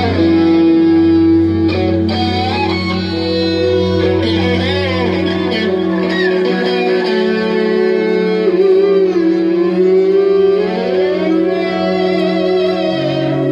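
Live electric guitar, heard through effects, playing a slow melody of long bending notes with wide vibrato over sustained low chords, in a jazz-rock band performance.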